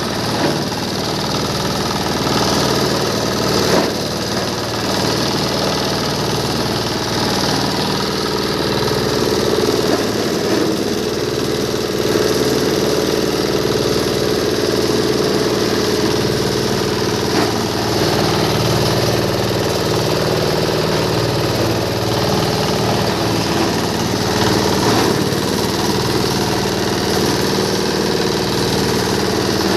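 Cloth-and-foam waste shredding machine running steadily: a continuous mechanical hum with several steady tones and a few brief knocks.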